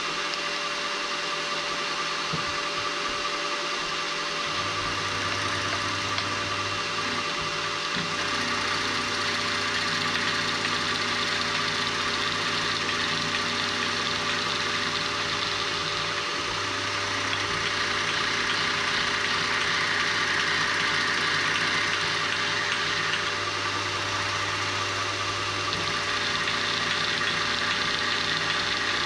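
Milling machine running steadily, taking a light skimming cut across the flat top of a small metal cylinder block to make it flat. A low hum joins about four seconds in.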